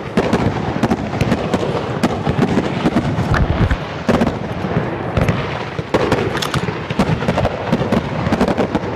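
Aerial fireworks going off in rapid succession: a dense, continuous stream of booms, bangs and crackling pops, many a second.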